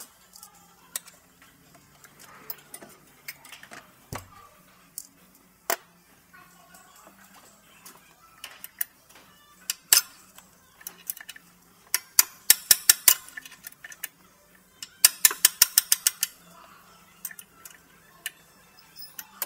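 Hand ratchet wrench clicking on the turbocharger fittings of a Ford Ranger 2.2 diesel, in two quick runs of rapid ticks a little past the middle, among scattered single metallic clicks and taps of tools against the engine.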